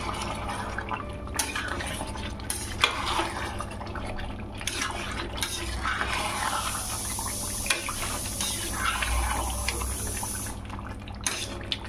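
Metal spatula stirring chicken pieces in watery curry gravy in a steel pot: wet sloshing with small scrapes and knocks against the pot, a couple of sharper knocks along the way.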